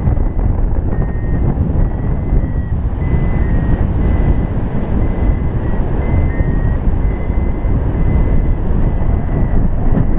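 Arduvario ESP32 paragliding variometer beeping in a steady series of short tones whose pitch shifts slightly from beep to beep, the climb signal that sounds while the glider rises faster than its +0.15 m/s threshold. Loud wind buffeting the microphone runs underneath.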